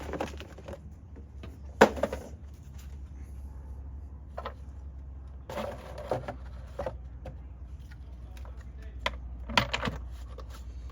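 Hands working the engine air filter and its plastic airbox housing: irregular knocks, clicks and rustles, the sharpest about two seconds in, over a steady low hum.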